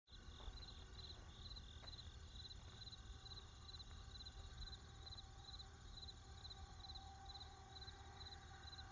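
Crickets chirping in a steady rhythm, about two chirps a second, over the low, steady rumble of distant traffic.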